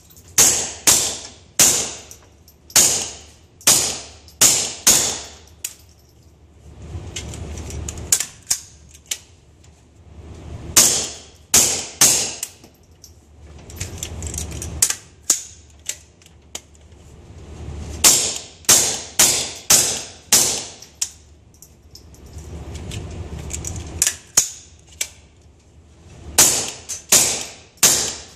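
Gunshots at a shooting range: strings of sharp shots about two a second, each with a short echo, broken by pauses of a second or two.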